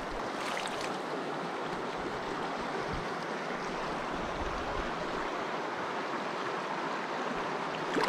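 Shallow mountain stream rushing steadily over a rocky riffle.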